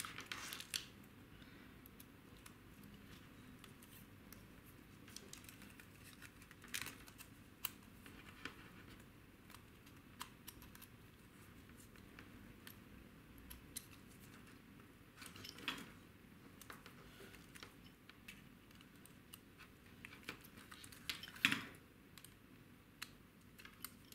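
Faint scattered clicks and taps of a hex screwdriver and small metal and plastic parts being handled on a mini RC car's carbon-fibre chassis, with a few sharper knocks, the loudest near the end.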